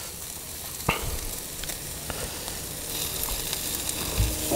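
Tandoori chicken pieces sizzling steadily as they cook, nearly done, with a sharp click about a second in and a low thump near the end.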